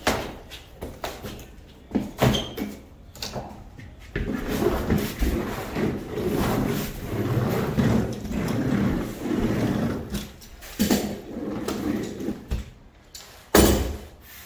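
Thin wood roof paneling being set down and pressed onto contact-adhesive-coated foam: knocks and thumps as the sheet is laid, then a hand roller rolled back and forth over the panel in a rough rumbling from about four seconds in to about ten. More knocks and a loud thump near the end.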